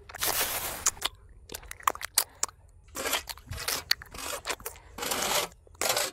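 Miniature trowel scraping wet cement mortar in a small metal dish and spreading it on a sandy surface: a series of short, gritty scrapes and clicks.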